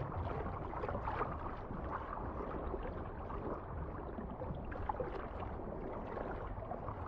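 Steady wash of moving water, flecked with small bubbling ticks.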